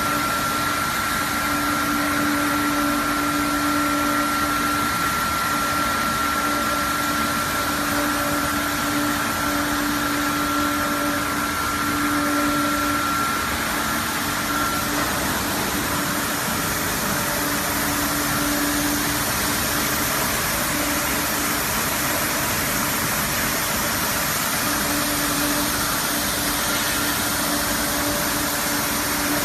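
Glass bottle washing machine running: a steady mechanical noise with a constant hum, and a higher steady whine that fades out about halfway through.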